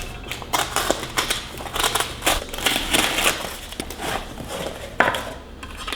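Packaging being handled and unwrapped: irregular crinkling and rustling, with a sharper knock about five seconds in.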